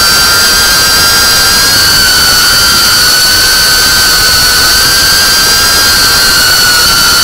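FPV racing drone's brushless motors and propellers giving a steady high-pitched whine whose pitch wavers gently as the throttle shifts in low, fast flight.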